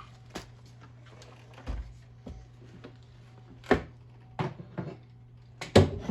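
A handful of separate knocks and clatters from things being picked up and set down on a workbench, the loudest pair near the end, over a steady low hum.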